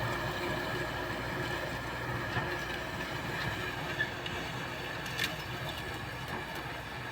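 Kubota M6040S tractor's diesel engine running steadily under load while ploughing a rice field, with mechanical clatter from the tractor and implement.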